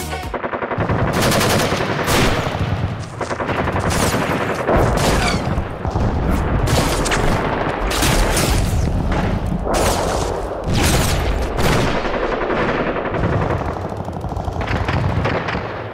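Video game sound effects: bursts of automatic gunfire, dense and loud throughout.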